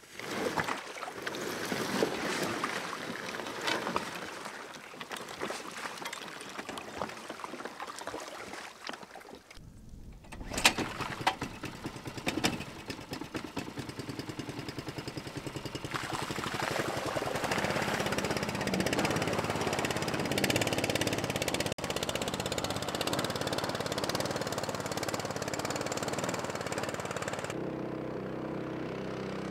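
Clattering and knocks for the first several seconds, then a small gas mud motor on a duck boat starts up about ten seconds in and settles into a steady run.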